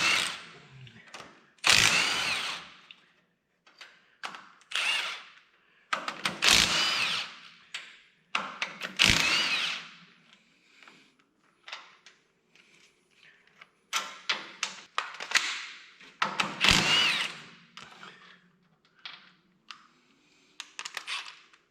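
Power tool spinning out the perimeter bolts of a tractor's hydraulic lift cover in short bursts, about eight of them, each up to a second long, with the pitch rising and falling within a burst.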